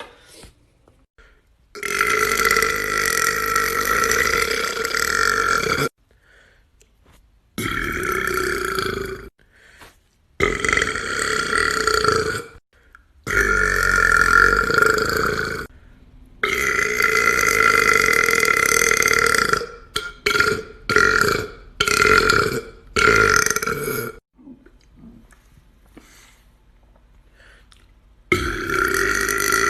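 A person belching loudly, a string of long drawn-out burps each lasting two to four seconds, then a quick run of short burps. After a pause of about four seconds another long belch starts near the end.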